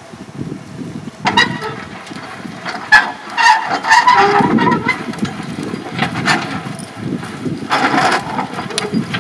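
Horse-drawn drum land roller rolling over tilled soil: a steady low rumble, with spells of metallic clattering and rattling from the roller frame and harness chains several times.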